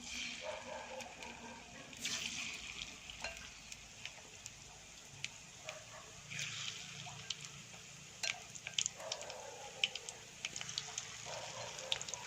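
Batter-coated banana flowers deep-frying in hot oil: a steady sizzle with frequent sharp crackles and pops.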